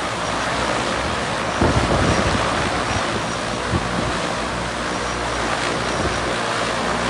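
Multirotor single-seat passenger drone flying, its rotors making a steady, loud whooshing rush with a faint low hum underneath. Wind buffets the microphone with a low thump about one and a half seconds in and again more lightly near four seconds.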